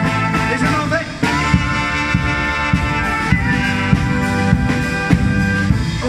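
Street band of saxophones, flutes, trumpets, sousaphone, accordion and acoustic guitar playing together. About a second in, the winds settle on one long held chord over a pulsing low beat.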